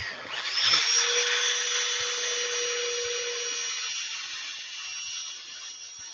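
Handheld electric drill with a foam-backed sanding disc running against a maple burl platter turning on a wood lathe, power sanding. It makes a steady high motor whine over a sanding hiss and eases off gradually toward the end.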